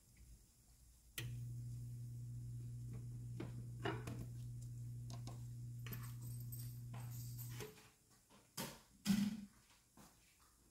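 A steady low electrical hum switches on about a second in and cuts off after about six and a half seconds. Light clicks and clatters of a spatula and dishes on a stone countertop sound over it, followed by a couple of sharp knocks near the end.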